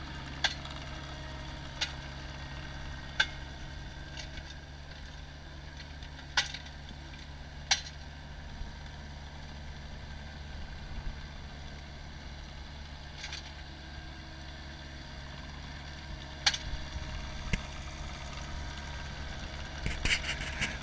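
Stand-on compact tracked loader's engine running steadily with a low hum as the machine drives over grass, with a sharp click every few seconds and a rougher clatter near the end.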